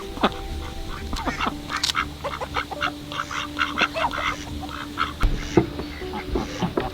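Farmyard fowl calling in a busy run of short, repeated calls.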